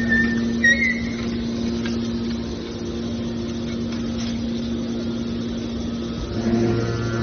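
Scrap metal baler machine running with a steady mechanical hum. There are short high metallic squeaks in the first second, and near the end the hum gets louder as a lower tone joins it.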